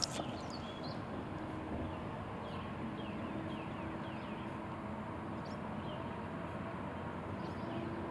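Small birds chirping in short, falling notes again and again over a steady low hum, with one sharp click at the very start.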